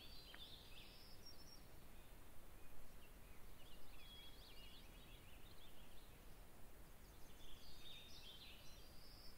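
Faint birdsong: quick high chirps and short trills coming in a few clusters, over a steady low background hiss.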